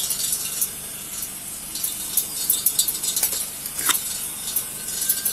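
Steady hiss from a police body camera's microphone, with scattered small clicks and crackles and a few sharper ones about three to four seconds in.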